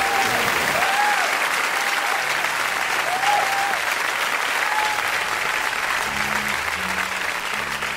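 Crowd applauding steadily, with soft background music underneath that brings low sustained notes near the end.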